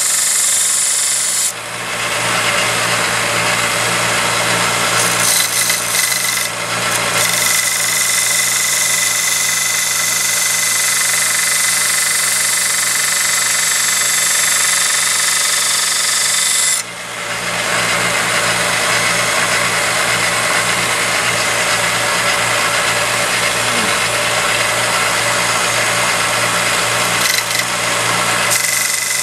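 Grizzly 1x30 belt grinder running with a knife blade held to the belt: a steady motor hum under a loud, high grinding hiss. The grinding drops out briefly about a second and a half in and again about 17 seconds in, then resumes.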